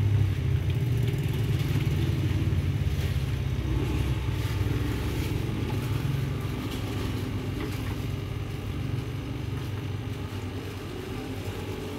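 A steady low mechanical hum, easing slightly toward the end.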